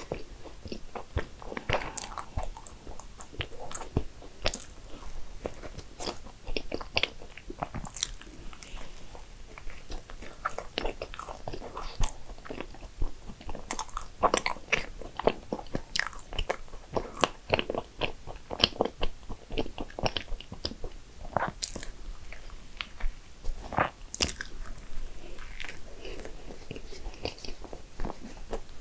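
Biting and chewing a chocolate maritozzo, a soft cream-filled bun: a run of irregular, sharp mouth clicks and smacks, with no break.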